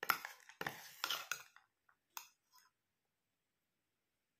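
Steel spoon clinking and scraping against a stainless steel bowl while stirring a grated carrot and beetroot salad: a quick run of sharp clinks over the first two and a half seconds.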